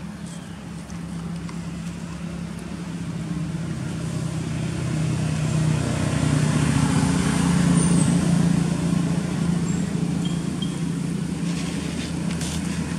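A motor vehicle engine passing by: a steady low hum that swells to its loudest about seven or eight seconds in, then eases off.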